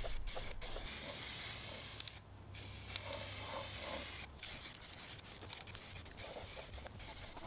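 Aerosol spray-paint can hissing as red paint is sprayed onto a metal frame, in two long bursts with a short break about two seconds in, then fainter spraying.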